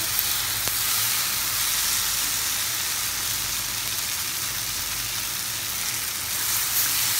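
Tomato and onion masala with chilli powder sizzling in a nonstick pan as a spatula stirs it: a steady frying hiss, with a low hum underneath.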